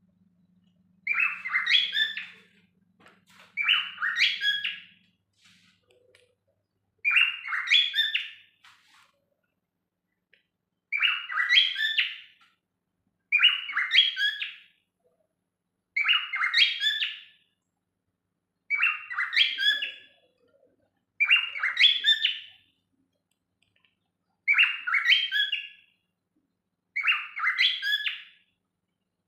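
Cockatiel singing, repeating the same short chirping phrase about ten times with brief pauses between.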